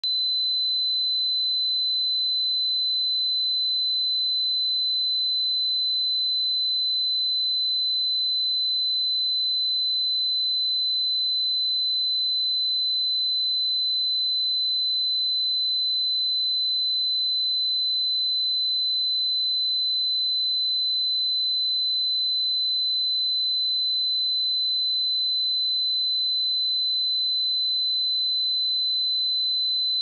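A pure 4032 Hz sine-wave test tone: one steady, unchanging high-pitched whistle, for checking speakers and headphones.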